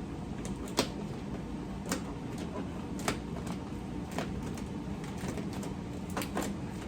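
Light clicks and taps of hands and tools working at a car door, about one a second with two close together near the end, over a steady low hum.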